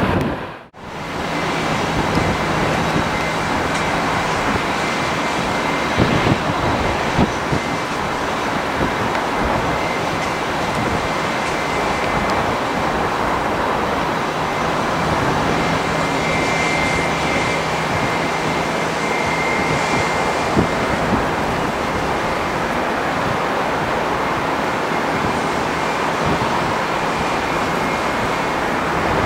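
Jet airliner engines running steadily, a wide rushing noise with a thin high whine and a low hum beneath it.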